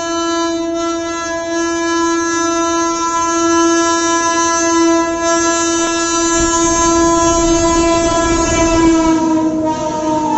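Electric locomotive's horn held in one long, loud, steady tone as a goods train runs through, its pitch dipping slightly near the end as the locomotive passes. The low rumble of the wagons on the rails rises from about six seconds in.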